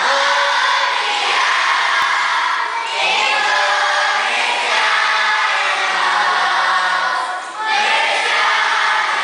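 A large group of schoolchildren singing together in unison. The song comes in sustained phrases, with short breaths about three seconds in and again near the end.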